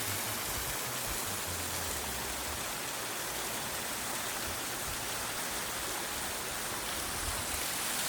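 Warm river water flowing past, a steady rushing hiss.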